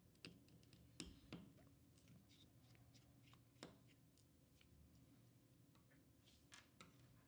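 Faint, scattered clicks and light ticks of small metal parts being handled as the little screws and the meter-coupling claw come off a Nikon Ai-S 20mm f/3.5 lens. The clearest clicks come about a second in and again past three and a half seconds.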